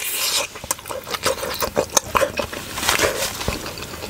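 Close-miked chewing of a mouthful of steamed pork momo, with a run of irregular wet smacks and clicks from the lips and mouth.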